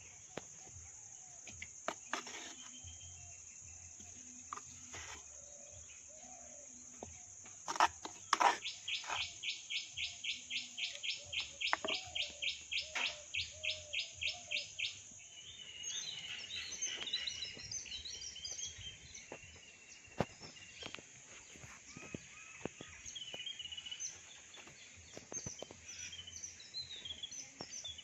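Outdoor birds and insects: a steady high insect drone throughout, a bird repeating a short call fast and evenly, about four a second, for some six seconds midway, then scattered chirping. Sharp clicks of a spoon scraping against the stone mortar and clay pot come in the first few seconds.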